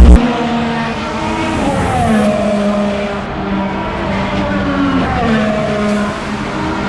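Race car engines running on the track, several at once, their pitch falling in long glides twice as they slow. A brief loud thump at the very start.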